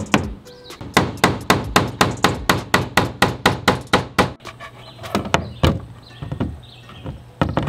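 Hammer blows in a fast, even run, about five a second, stopping about four seconds in, as the wooden sign is fastened up; a few single knocks follow.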